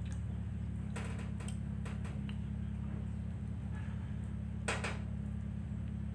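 Eating by hand from a plate of fried noodles, rice and fish: a few short, soft clicks and smacks in the first half and a sharper one about three-quarters through, over a steady low hum.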